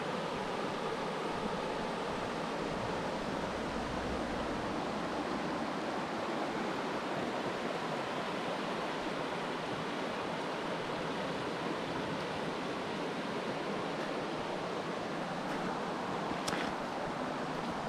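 Steady rushing of flowing water, with one short sharp click near the end.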